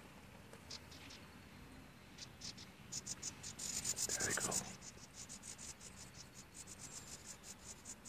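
Nestling birds inside a nest hole in a wooden carving chattering in rapid, very high-pitched cheeps. They swell into a loud burst of calls about three to four and a half seconds in, as an adult bird arrives at the entrance hole, then go on in scattered bursts.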